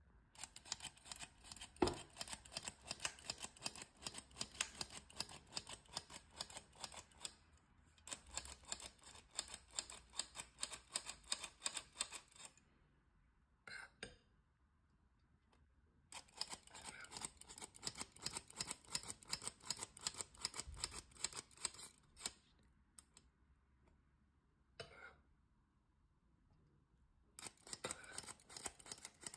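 Hand-operated metal flour sifter being worked over a bowl: rapid runs of dry, ratcheting clicks, each a few seconds long, broken twice by longer pauses.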